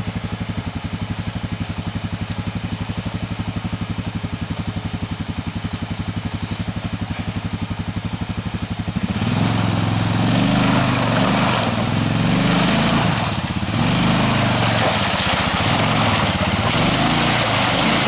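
Arctic Cat 454 ATV engine running steadily at low revs, then about halfway through it gets louder and revs up and down in repeated surges as the throttle is worked.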